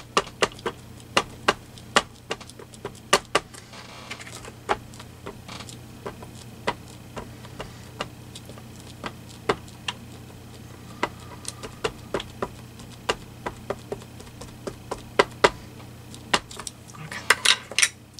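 Small ink pad being dabbed over and over onto a stamp mounted on a clear acrylic stamping platform: irregular sharp plastic taps, about one or two a second, with a quick run of louder clicks near the end.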